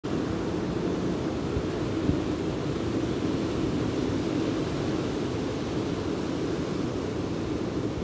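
Sea surf breaking on a sandy beach, a steady wash of noise, with wind buffeting the microphone.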